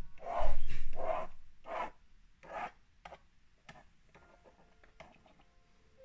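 Magnetic pen scratching across the screen of a children's magnetic drawing board: one long stroke starting about half a second in, then several shorter strokes.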